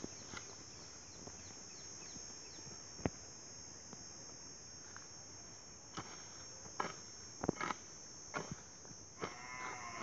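Steel hoe blade scraping and chopping into dry soil and grass around a seedling: scattered single strikes, most of them in the second half. A steady high-pitched drone runs under it, and a short pitched call sounds near the end.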